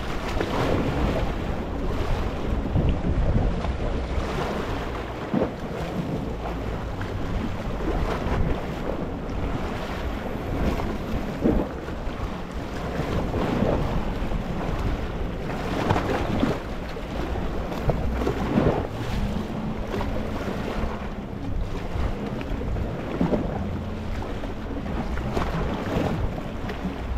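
Small waves washing onto a rocky shore: a continuous rush of surf that swells and eases every few seconds.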